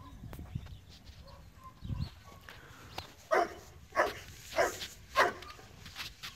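A dog barking four times in quick succession, about a second and a half apart at most.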